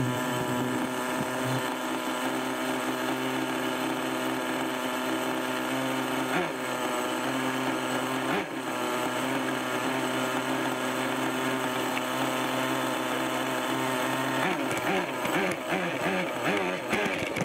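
Kyosho Mad Force RC monster truck's small nitro (glow-fuel) engine idling steadily. About three-quarters of the way in it starts revving up and down as the truck drives off.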